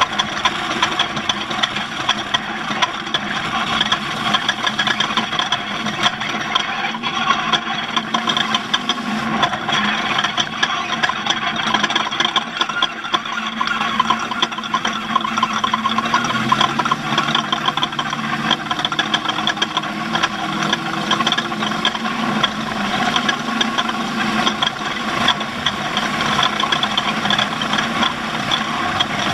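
Off-road race vehicle's engine running steadily under way, with rattling throughout; the engine's pitch climbs slowly a little past the middle.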